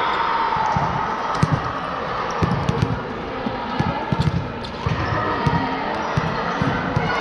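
A volleyball being bounced and struck on a gym court: a string of irregular thuds over a background of voices.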